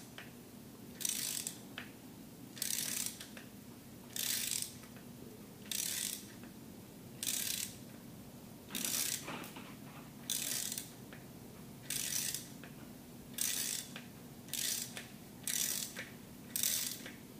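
Socket ratchet clicking in short runs, one stroke about every second and a half and a little quicker near the end, as a 12-point 14 mm socket on a bolt extractor backs the threaded oil filter nipple out of a Gen III Hemi block.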